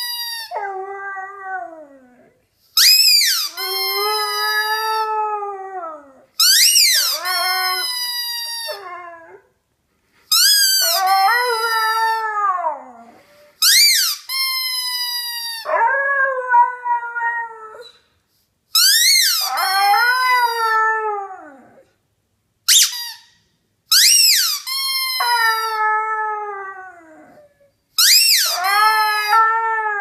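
A squeaky toy and a Siberian husky puppy trading sounds about eight times. Each exchange is a short, high squeak followed by the husky's drawn-out, howling "talk", which falls in pitch over a couple of seconds, with brief pauses between exchanges.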